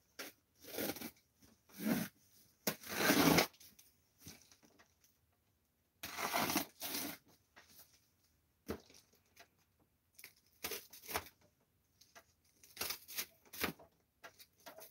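Packing tape and cardboard on a shipping box being slit and torn open with a box cutter: a series of short, noisy cutting and tearing strokes with brief pauses between them.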